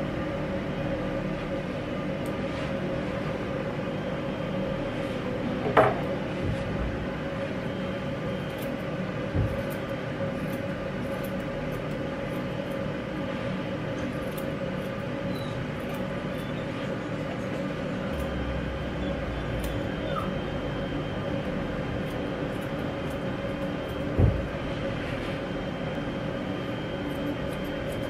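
Grooming scissors snipping in short faint clicks over a steady electric hum, with a few soft knocks.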